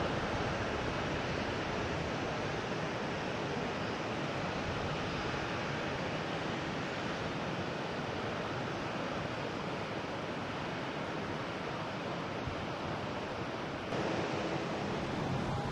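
Steady outdoor rushing noise with no distinct tones. It changes character and gets a little louder about 14 seconds in.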